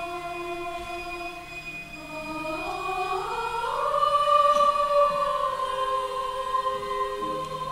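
Choir singing long held chords. A few seconds in the voices slide upward together in pitch, then settle on a higher chord that swells louder.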